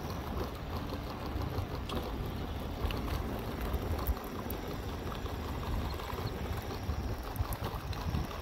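Hoverboard wheels rolling over rough, cracked asphalt: a steady low rumble with a few faint clicks, mixed with wind on the microphone.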